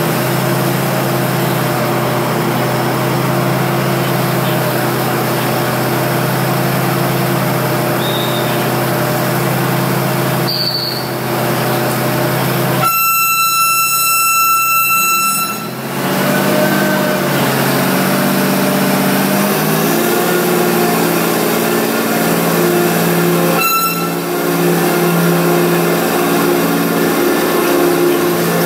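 A diesel train engine runs with a steady low hum. A loud, high-pitched tone sounds for about three seconds midway and briefly again later. After it, the engine note shifts as the train pulls out.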